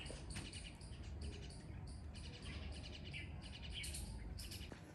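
Small birds chirping repeatedly over a low, steady background rumble.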